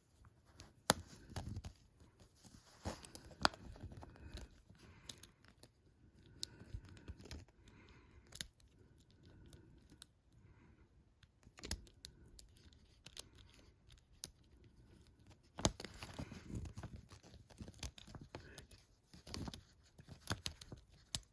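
Lock pick and tension wrench working the security pins of a Comando padlock: faint, irregular small clicks and scratches as the pins are raked and set.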